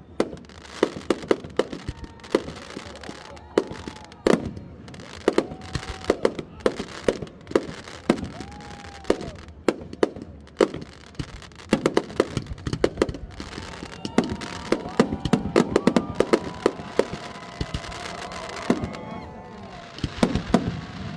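Fireworks show: aerial shells bursting one after another, a continuous run of sharp bangs several a second, thickest about two-thirds of the way through.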